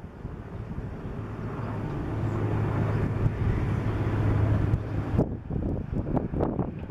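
Mi-8-type transport helicopter flying past, its turbine engines and rotor making a steady low drone that grows louder over the first few seconds. About five seconds in the drone drops away suddenly, leaving gusts of wind on the microphone.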